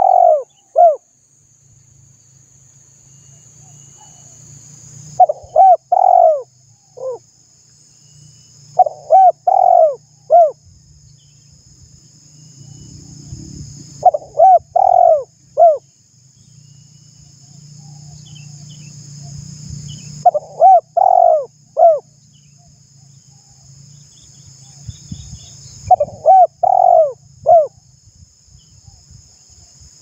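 Spotted dove cooing: a short phrase of three or four coos, repeated about every five seconds, six times, over a faint steady high-pitched hiss.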